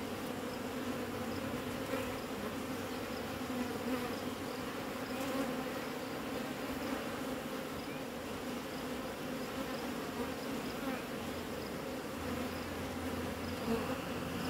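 Honeybees buzzing at the entrance of a traditional wooden hive: the steady hum of many bees, level in pitch.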